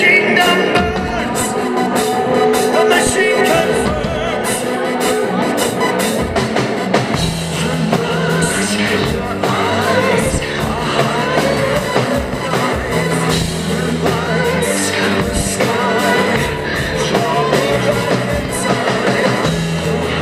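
Live rock band playing: a male singer over electric guitars, bass and a steady drum beat.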